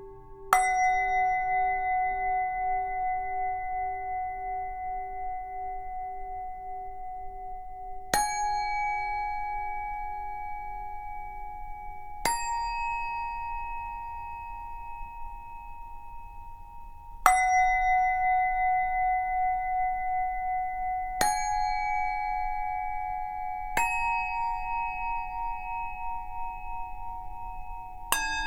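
Tibetan singing bowls struck one at a time, seven strikes in a repeating round of three pitches. Each strike is left to ring on with a slowly pulsing, wavering hum as it fades.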